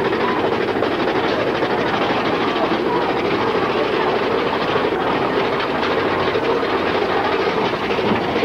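Big Thunder Mountain Railroad mine-train roller coaster running along its track at speed, heard from on board the car as a loud, steady rumble and rattle.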